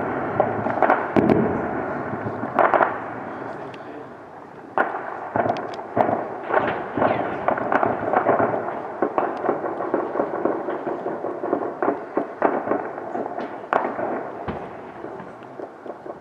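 Gunfire in a firefight: irregular single shots and quick runs of shots, at varying loudness, with echo between the reports.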